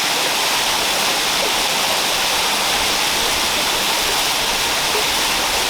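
Waterfall crashing down close by, a steady loud rush of falling water.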